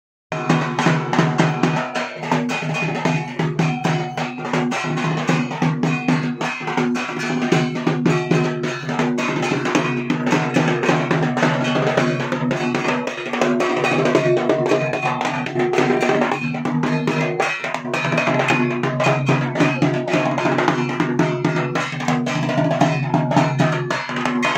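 Dhak, the big Bengali barrel drum, played in a fast, continuous rhythm with steady ringing tones beneath the strokes: puja drumming for a dhunuchi dance.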